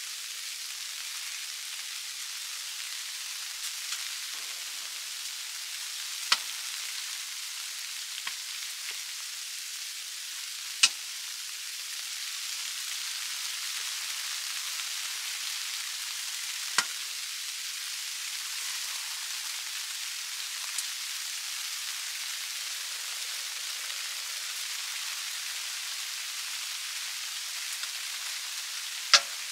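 Wood-burning tent stove: a steady hiss with a few sharp crackling pops from the burning firewood, the loudest near the end.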